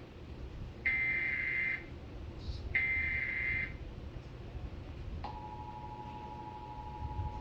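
Emergency Alert System (SAME) header data tones: two bursts about a second each, the last of the three header repeats, then about five seconds in the steady two-tone EAS attention signal starts. Together they open a Required Monthly Test of the Emergency Alert System.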